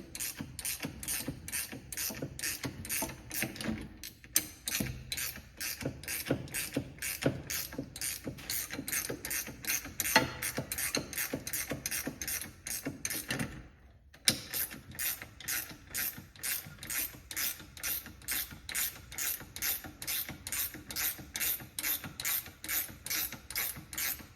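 Ratcheting box-end wrench clicking in a steady rhythm, about two or three clicks a second, as it turns the nut on a bushing-puller tool that draws a steering rack bushing out into its sleeve. The clicking stops briefly a little past halfway, then resumes.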